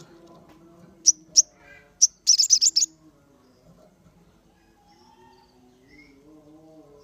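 Sogon songbird calling: a few sharp, high chirps a little over a second in, then a quick run of about six high notes, over fainter, lower calls.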